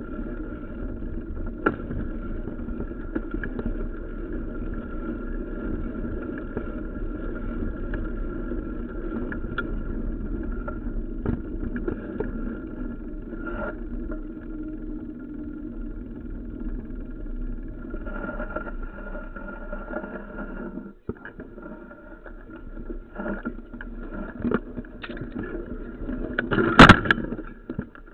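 Mountain bike ridden over a rough dirt trail, heard from a camera mounted on the bike: steady jolting noise of tyres and frame, with many sharp knocks over bumps. The noise drops off suddenly about three quarters of the way through, then comes back unevenly, with one loud knock near the end.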